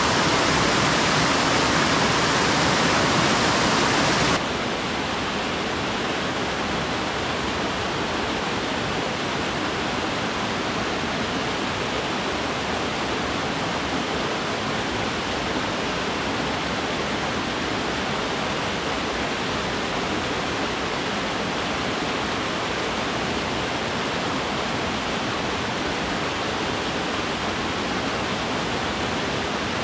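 Small waterfall cascading over rocks: a steady, even rush of water. It drops a little in loudness about four seconds in, then holds steady.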